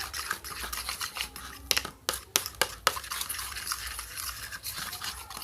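A spoon stirring and scraping a mix of white glue and talc in a container, an irregular run of quick scrapes and clicks against its sides.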